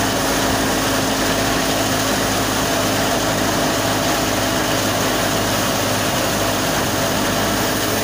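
Super National wheat thresher running while wheat is fed into it: a loud, steady mechanical din of the threshing drum and drive.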